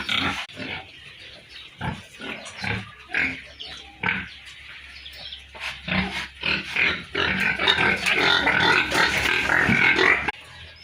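Pigs grunting in short separate calls, then a louder, denser stretch of many overlapping calls in the second half that cuts off abruptly near the end.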